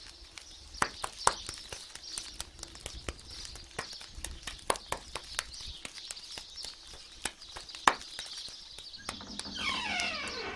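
Steady chirring of night insects, with scattered sharp knocks and clatters of kitchen work. About nine seconds in, a drawn-out animal call slides down in pitch.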